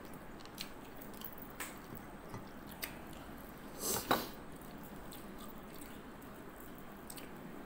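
Close chewing and mouth smacks of a person eating rice with the fingers, with scattered small clicks and one brief louder noise about four seconds in.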